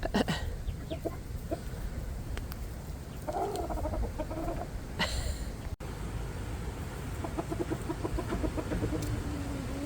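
Chickens clucking and calling in short scattered calls, with one longer call about three and a half seconds in.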